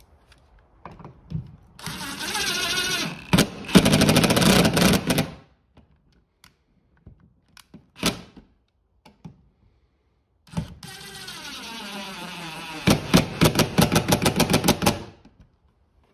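Cordless drill-driver driving two screws through a deer skull plate into a wall, its motor whining in two runs that each end in a rapid string of clicks as the screw seats.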